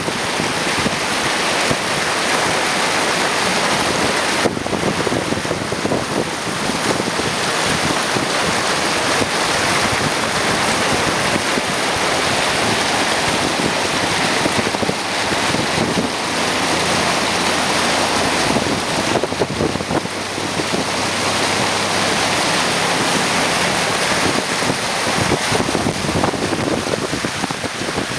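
Floodwater rushing past in a loud, steady flow.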